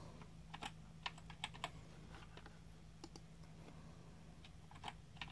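Faint keystrokes on a computer keyboard, typing a name into a form in a few short bursts of clicks.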